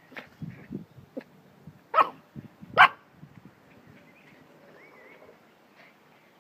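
Puppies barking in play: two loud, sharp barks a little under a second apart, with a few smaller yips before them.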